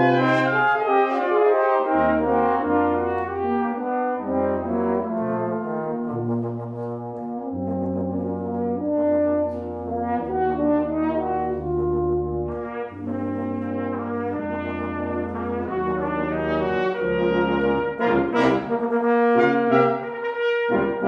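Brass quintet of two trumpets, horn, trombone and tuba playing together, the tuba holding low notes that change every second or so under the upper voices. Near the end the parts move in quicker, shorter notes.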